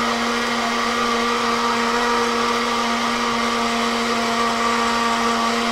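Personal smoothie blender motor running steadily with a constant whine, blending mango, yogurt, ice cubes and milk into a lassi.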